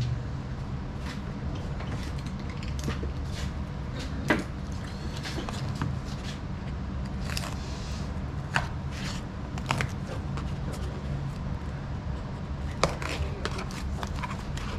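Parts and cardboard packaging being handled: scattered clicks, knocks and scrapes, a few sharper knocks standing out, over a steady low hum.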